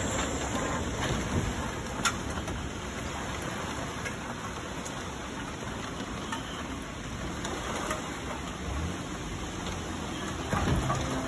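Steady rain falling on a sailboat and its cockpit canvas, with a few sharp drip taps, the clearest about two seconds in.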